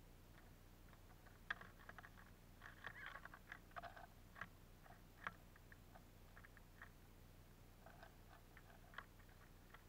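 Eurasian siskin and Eurasian bullfinch pecking at and cracking sunflower seeds on a feeder tray: faint, irregular clicks and taps in quick clusters, busiest in the first half, with a few more near the end.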